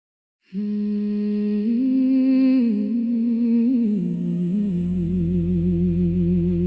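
Music: a voice humming a slow melody with a slight waver, starting about half a second in. A low sustained bass note comes in about four and a half seconds in.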